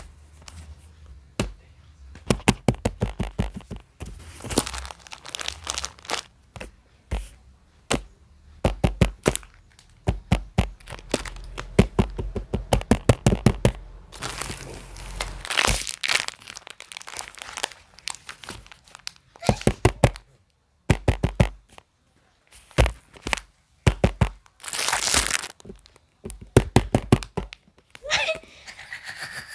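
Hands handling fidget toys: a long run of quick taps, clicks and knocks, with stretches of crinkling paper and plastic.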